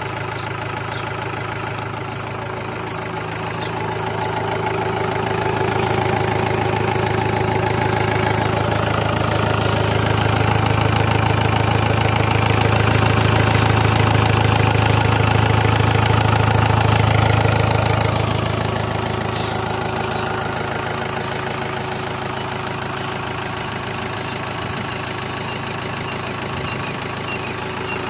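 Mahindra Major jeep's diesel engine idling steadily with a low hum. It grows louder a few seconds in, holds there for a while, then drops back to its earlier level about two-thirds of the way through.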